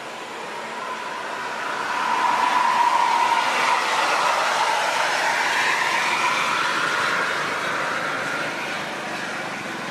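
Mercedes-Benz-chassis Jetbus coach driving past close by: engine and tyre noise with a faint whine that builds, is loudest about three seconds in, then slowly fades as the bus pulls away.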